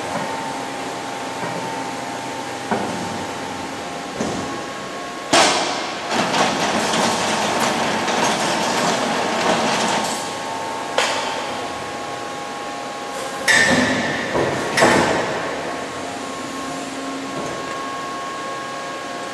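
Ficep Excalibur CNC band-saw line for steel beams running with a steady machine hum, punctuated by metal clanks as the steel profile is clamped and moved on its roller conveyors. A loud clank about five seconds in is followed by about five seconds of dense rattling. Near the middle come several more clanks, one of them ringing briefly like struck steel.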